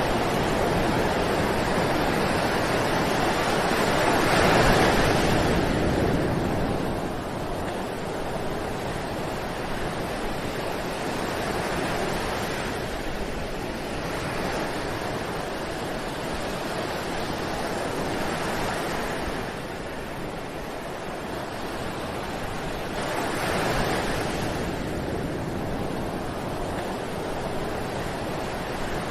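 Ocean surf: a steady rush of waves breaking and washing up the beach, swelling with bigger breakers about five seconds in and again some twenty seconds later.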